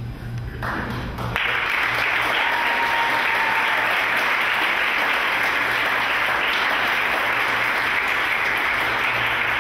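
Audience applauding: clapping starts about half a second in, swells to full applause within another second and stays steady.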